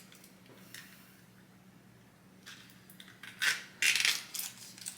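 Fast-food packaging being handled: a few short, sharp crinkling and clattering bursts about three and a half to four and a half seconds in, after a quiet start.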